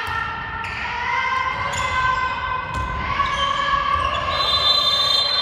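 A handball bouncing on a sports-hall floor during play, ringing in the hall, with long steady high-pitched tones sounding over it and a bright high tone near the end.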